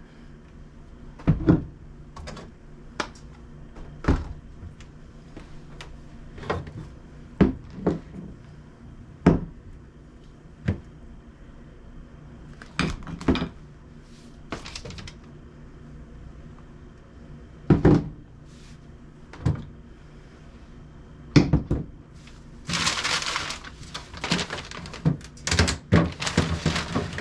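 Irregular thunks, knocks and clatters of food containers, shelves and drawers being handled as a refrigerator is cleared out and cleaned, with a faint steady hum underneath. Near the end a few seconds of rough hissing noise mixes with quick knocks.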